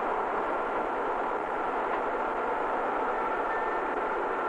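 A dense wall of amplified rock-band noise and feedback, steady and unbroken, with a few high feedback tones held over the din.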